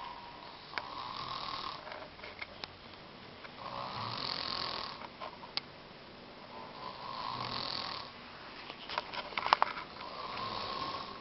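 A man snoring in his sleep, one breathy snore about every three seconds, four in all. A few sharp clicks come about nine seconds in.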